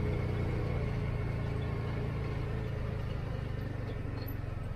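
Side-by-side utility vehicle's engine running at low speed, a steady low hum heard from inside its enclosed cab, gradually getting quieter.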